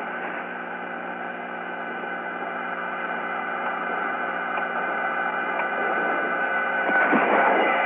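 Open air-to-ground radio channel with no one talking: steady hiss and a hum made of several steady tones, slowly getting louder.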